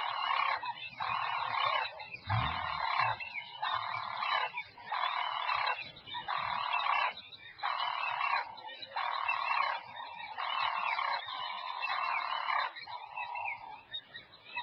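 A steady rhythmic chorus of animal calls, each call lasting about two-thirds of a second and repeating about once a second. A brief low thud comes about two seconds in.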